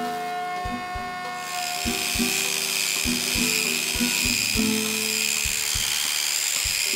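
Background music with a steady beat, over an angle grinder with a sanding disc grinding the hardened steel of an old saw blade. The grinder's steady whine turns into a loud, dense grinding hiss about a second and a half in.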